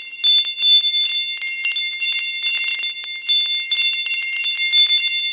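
Wind chimes ringing, struck irregularly and many times over, their high, glassy tones overlapping and ringing on.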